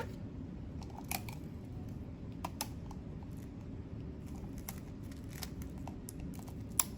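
Tape being handled, torn and pressed onto a light switch plate cover: scattered soft clicks and crackles over a steady low hum, with a sharper click near the end.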